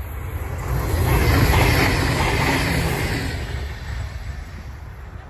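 Three-car V/Line VLocity diesel multiple unit passing close at speed: the rush of its wheels and engines swells to a peak about two seconds in, then fades as it moves away.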